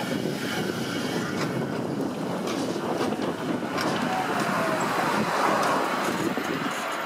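Translohr rubber-tyred guided tram rolling in close alongside: a steady rumble and hiss of its tyres and running gear. About four seconds in there is a faint falling electric whine.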